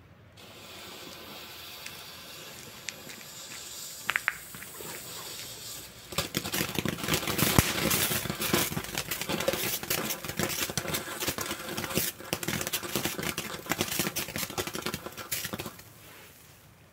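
Nico 'Funky Dynamite' F1 firework fountain burning. It starts with a steady hiss, and about six seconds in turns louder with dense crackling, then dies away just before the end as it burns out.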